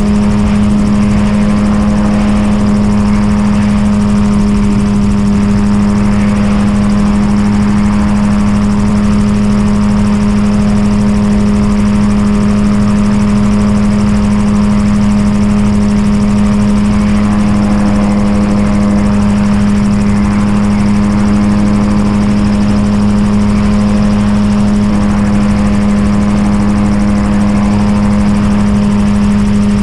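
Xenon gyroplane in flight, heard from on board: its engine and pusher propeller run at a steady power setting, a loud, even drone with a strong low hum and rushing wind noise.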